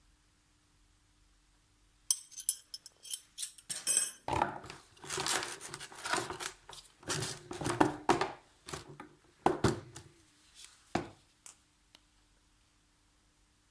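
Hard objects being handled during an unboxing: a run of sharp clicks, clinks and rattles with some rustling, starting about two seconds in and dying away after about eleven seconds.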